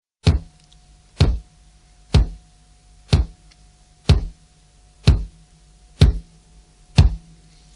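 A slow, steady beat of single deep drum hits, eight in all, about a second apart, each dying away quickly over a faint steady hum.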